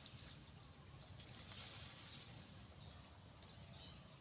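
Quiet outdoor ambience with a few faint, short bird chirps scattered through it.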